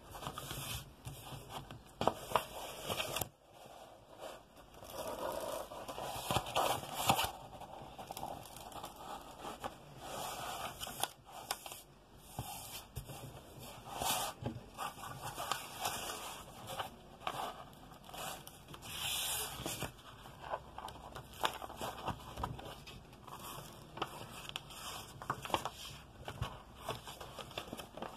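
Diamond painting canvas and its stiff plastic protective film rustling, crinkling and scraping as hands flatten and handle it, with many small crackles throughout.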